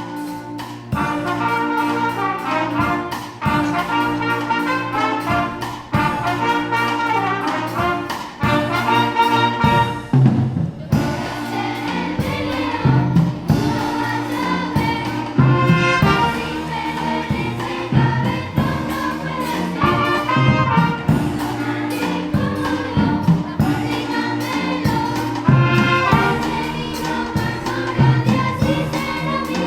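Music: singing voices with brass instruments, joined by a steady percussive beat from about ten seconds in.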